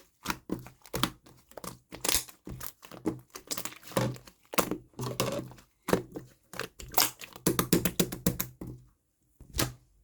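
Close-up handling noises: a quick, irregular run of taps, clicks and crinkles, stopping about a second before the end with one last click.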